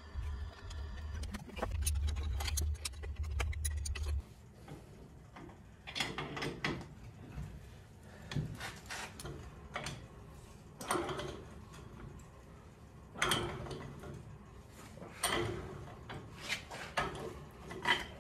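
Hand tools knocking and scraping on cast-iron pump and pipe fittings in irregular, separate strokes. A low steady hum runs for the first four seconds, then cuts off.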